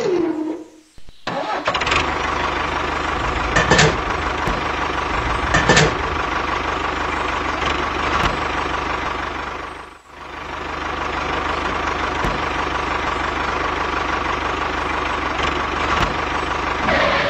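Tractor engine running steadily with an even chugging pulse, starting about a second and a half in. It has two brief louder surges about four and six seconds in, fades out briefly around ten seconds in, then comes back up at the same steady run.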